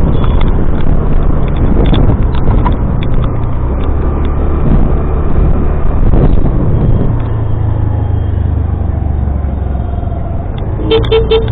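Motorcycle engine running steadily on the road, easing a little about two-thirds of the way through. Near the end come three short high beeps.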